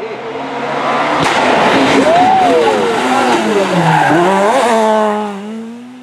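Rally car passing close at full attack on a tarmac special stage, its engine revving hard as it grows loud and fades. The engine note falls sharply about four seconds in as it brakes for the corner, then climbs again as it accelerates away.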